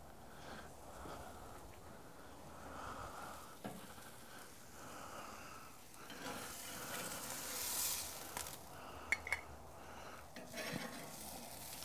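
Tuna steaks sizzling faintly on a hot cast-iron grill grate. The sizzle swells for a couple of seconds past the middle, and a few sharp clicks of metal tongs and spatula against the grate follow as a steak is lifted off.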